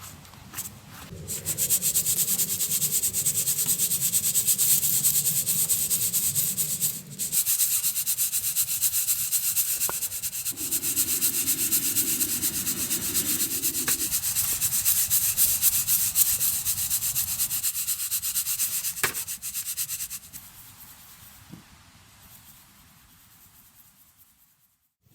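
Rapid, steady hand rubbing and scraping on a surface, like sanding, in two long spells with a brief break about seven seconds in; it dies away about twenty seconds in.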